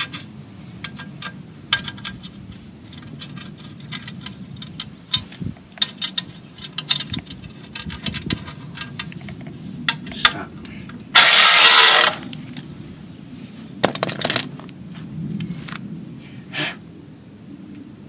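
Scattered small metallic clicks and clinks of hand tools and bolts being worked on a motorcycle skid plate, over a low steady hum. About eleven seconds in comes a loud burst of rushing noise lasting under a second, and a shorter one follows about three seconds later.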